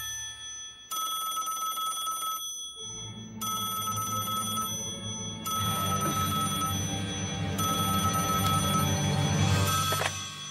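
A telephone bell ringing in several bursts with short pauses between them, over background music that grows louder near the end.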